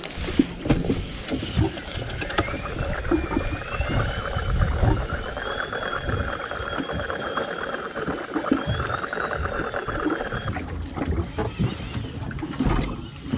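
A small boat at sea: water knocking against the hull, wind and handling of the rod and reel, with a thin, slightly wavering whine from about two seconds in that stops shortly before the end.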